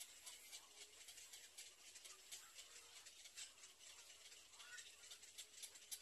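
Near silence: a faint background hiss with soft, irregular ticks a few times a second.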